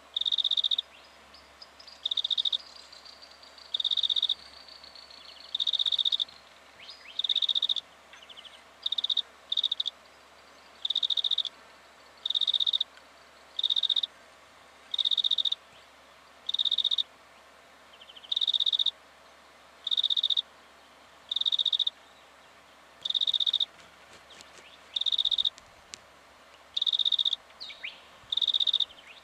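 A small animal's call: one short, high-pitched note repeated at a steady pace, about once every one and a half to two seconds.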